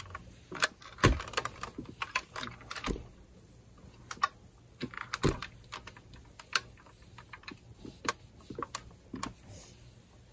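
Irregular light clicks and taps of cloth being handled and pressed with a steam iron on an ironing board, with a few heavier knocks, about a second in and again midway.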